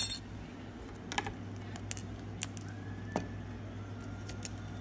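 Scattered small clicks and taps of a screwdriver and tiny metal parts against an iPhone 5C's metal screen plate as it is positioned over the logic board. A louder click comes right at the start.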